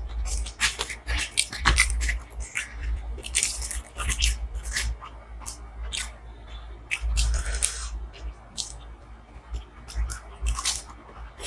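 Close-miked chewing and mouth sounds of a person eating butter chicken with paratha, a dense run of irregular clicks and crackles.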